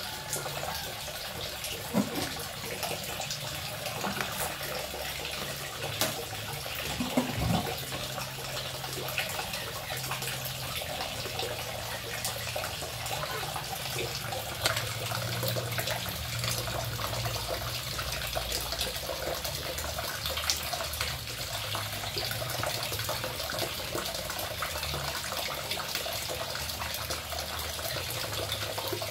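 Water running steadily, a continuous hiss, with scattered knocks and clinks of kitchen things being picked up and set down on a tiled counter.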